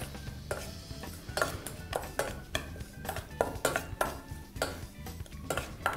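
Metal spoon stirring diced raw fish and onion in a stainless steel bowl, clinking and scraping against the metal in a quick, irregular series of about three clinks a second, some with a short ring.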